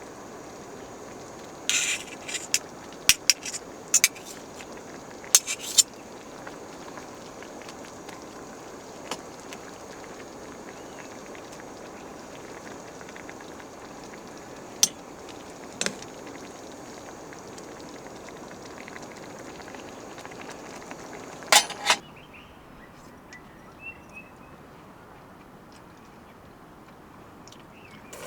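Camp cooking: metal utensils clink and tap against a pot or pan in small clusters over a steady hissing, bubbling background. The hiss drops away about three-quarters of the way through, leaving a quieter background.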